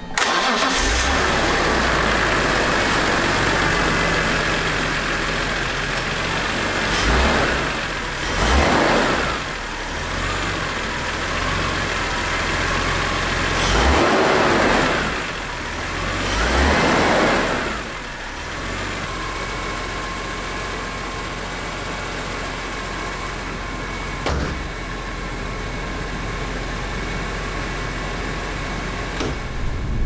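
BMW E46 M3's S54 straight-six engine starting from cold and idling through a carbon-fibre Eventuri intake. It is blipped up a few times in the middle, in two spells, then settles back to a steady idle.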